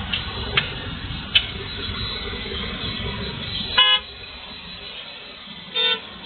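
A vehicle horn gives two short toots about two seconds apart, over the steady running and road noise of a vehicle moving through city traffic. There are a few brief clicks in the first second and a half.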